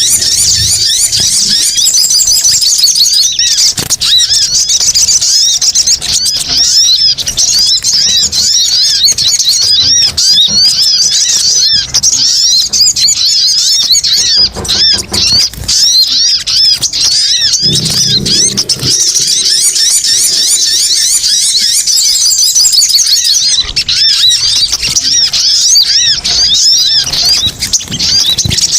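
Sogon (sogok ontong) birds chirping rapidly and without pause, many high, quick notes overlapping into an excited chatter: a bird-lure recording made to call these birds in.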